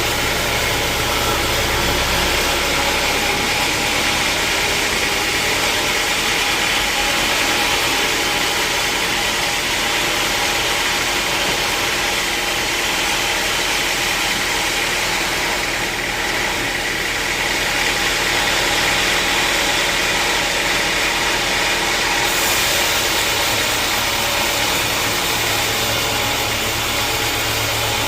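Sawmill machinery running steadily: a loud, even mechanical drone with a constant hum, with no pauses or sudden changes.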